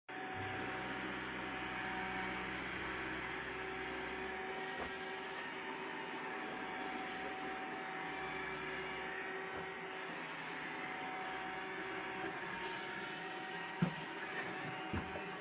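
Roomba robot vacuum running with a steady whir and hum, with a few soft knocks near the end.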